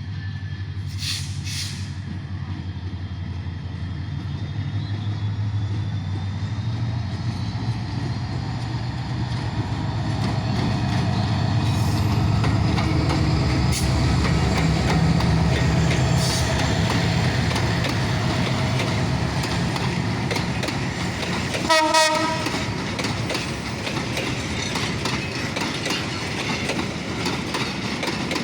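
Hyundai Rotem diesel-electric locomotive running with a passenger train: a low engine drone and wheel clatter build up and hold loudest around the middle. The locomotive's horn sounds one short blast about 22 seconds in.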